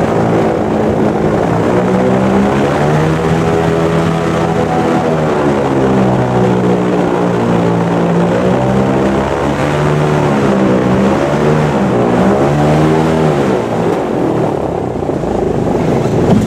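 Airboat's engine and large air propeller running loud, a steady drone whose pitch dips and rises several times as the throttle is eased and opened, easing off near the end.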